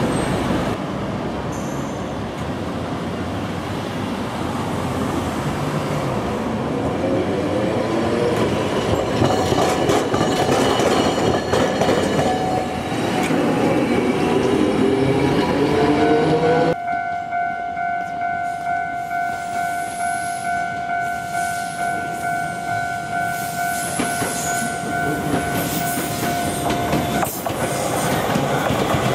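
An Iyotetsu 50-series streetcar rolls over street track, its traction motors giving a rising whine as it pulls away. After a cut, a level-crossing alarm rings in a steady pulsing tone, then stops near the end as an electric suburban train rolls past with wheel clatter.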